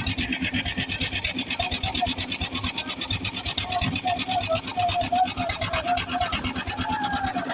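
An engine on construction machinery running steadily with a fast, even chugging.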